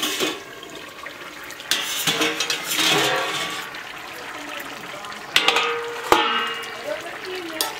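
Fish and potato curry bubbling and sizzling in a pan, swelling to a louder hiss about two seconds in. Two sharp clinks of cookware follow about five and six seconds in.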